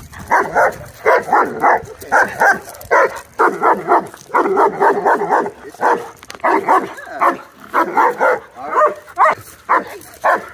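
German Shepherd barking hard and fast in quick volleys of two to four barks, one volley after another without a break: reactive barking at another dog.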